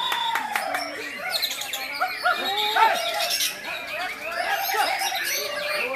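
Many caged songbirds singing at once: a dense, overlapping chorus of chirps, trills and whistled glides.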